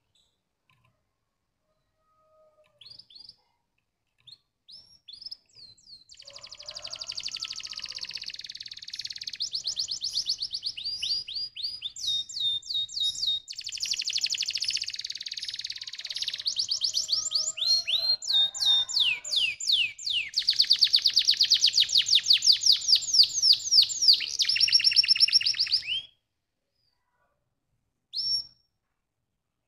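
Domestic canary singing. After a quiet start come a few short separate notes, then about twenty seconds of unbroken song in fast rolling trills, changing from one trill to the next. The song stops abruptly and is followed near the end by a single short note.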